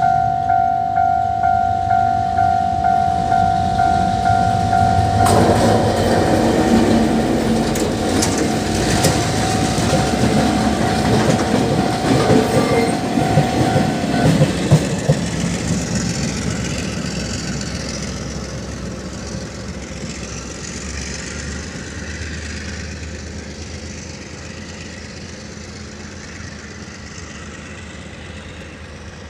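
Level-crossing warning bell ringing in a steady pulsing tone, about two strokes a second. About five seconds in, a freight train reaches the crossing and its wheels clatter over the rails, with sharp clicks in the middle. The bell stops around fourteen seconds in, and the train's rumble then fades as it moves away.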